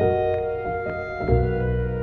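Slow instrumental background music of long held notes, with the notes changing every second or so and a new, lower bass note coming in partway through.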